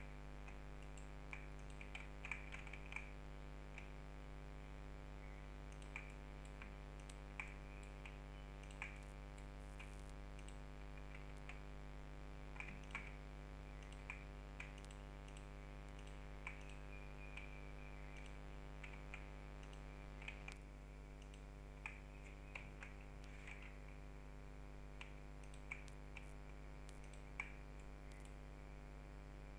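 Light, irregular clicks of a computer mouse and keyboard, spaced a second or so apart, over a steady low hum.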